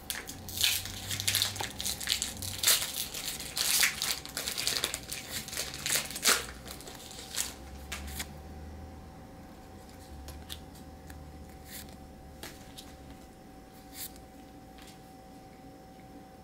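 Crinkling of foil Pokémon booster-pack wrappers being handled, dense for about the first half, then thinning out to a few scattered soft clicks of cards being handled.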